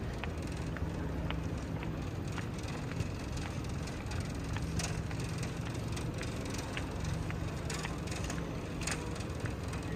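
Busy airport terminal hall heard on the move: a steady low rumble and hum with scattered clicks and knocks.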